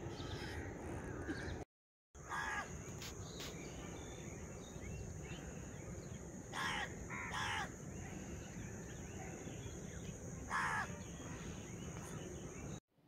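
A bird gives four short calls, spread a few seconds apart, over a steady low outdoor background and a thin steady high whine. The sound drops out for a moment near the two-second mark.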